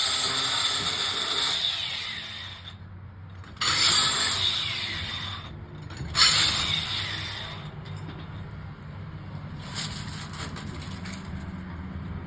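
Power tool run in short bursts. A long run stops about a second and a half in, then two sharp starts a few seconds apart each fade away, and a fainter burst comes near the end.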